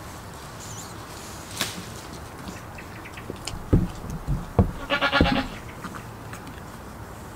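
A goat gives one short bleat about five seconds in, preceded by a few dull thumps.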